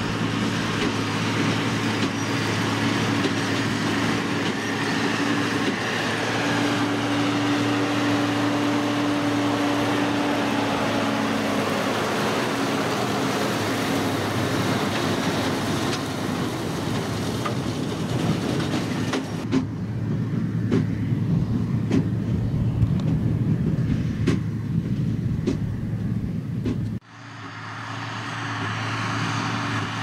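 New Holland TM165 tractor's six-cylinder diesel running steadily under load, pulling a New Holland BigBaler 1290 large square baler as it bales wheat straw. In the latter part the baler's machinery adds irregular clanks and knocks. Near the end the sound drops off sharply and swells back.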